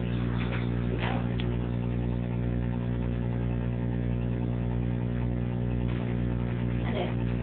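Steady low electrical hum with many even overtones, unchanging throughout, with faint brief sounds about a second in and near the end.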